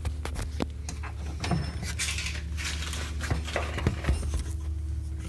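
Handling noise of metal tools and parts: irregular light clinks, clicks and rattles, over a steady low hum.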